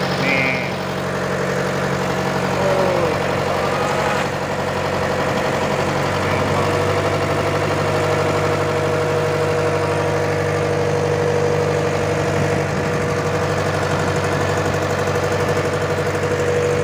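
An engine running steadily at idle on a fishing boat: an even, unchanging hum with a steady higher whine over it.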